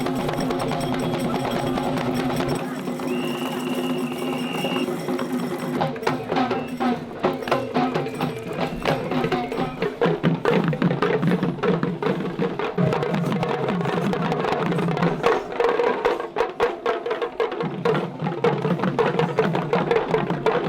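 Traditional percussion music of drums and wooden strikes. Held tones carry the first few seconds, then dense, rapid drum strokes take over from about six seconds in.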